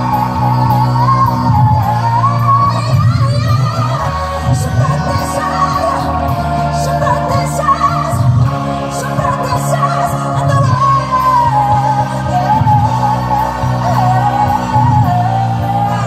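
A woman singing lead into a microphone with a live amplified band, a melody that wavers up and down over held bass notes and a regular drum and cymbal beat, in the echo of a large hall.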